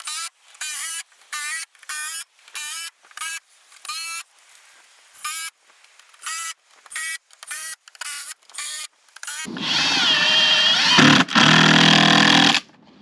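A cordless drill runs in two loud bursts under load, its pitch wavering as it drives screws into wood, with a short break between. Before it, a run of short high chirps repeats two or three times a second.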